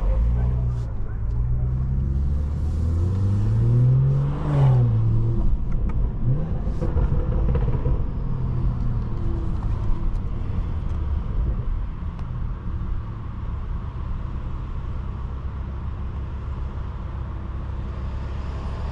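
BMW 540i's turbocharged straight-six with catback exhaust, downpipe and stage 2 tune, accelerating with its pitch climbing for about four seconds, then dropping sharply at an upshift. It then runs at a lower, steadier pitch, with a short rise again a couple of seconds later.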